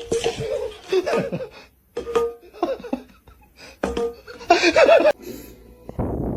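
A person laughing in repeated short bursts over background music, loudest about four and a half seconds in.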